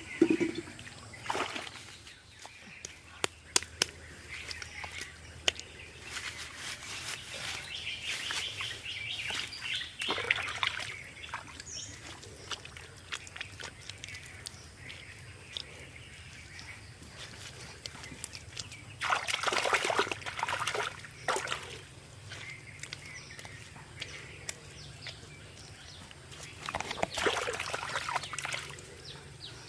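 Water splashing, sloshing and trickling in irregular bursts, with scattered clicks and two louder splashy bursts past the middle and near the end; birds call faintly behind.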